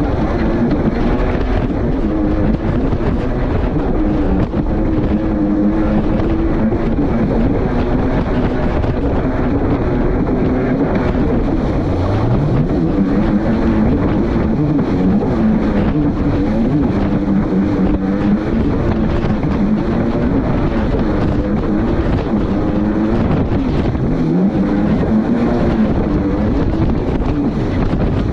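2021 Kawasaki STX-160 jet ski's four-cylinder four-stroke engine running under way, its pitch rising and falling with the throttle, with a clear climb in revs about twelve seconds in. A steady rush of wind and water runs under it.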